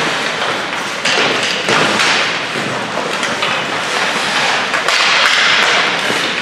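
Ice hockey skate blades scraping and carving across rink ice in repeated swells of hiss, with knocks of sticks and the puck. Heard in the open, echoing space of an ice rink.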